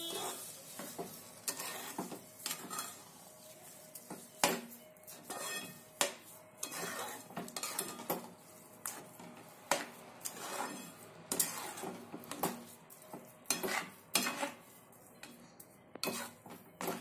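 A metal spoon stirring thick grated-carrot halwa, just mixed with sugar, in an aluminium pan: irregular scrapes and clinks of the spoon against the pan.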